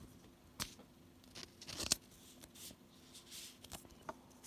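Trading cards being handled: soft papery slides and swishes with a few light taps as cards are moved and set down.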